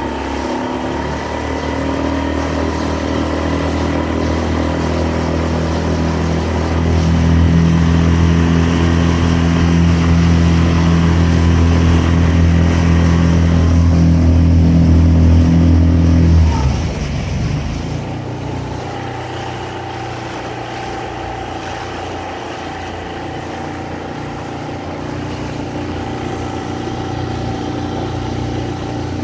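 Small outboard motor running under way, a steady engine drone. About two-thirds of the way through, the engine note drops abruptly and runs on quieter.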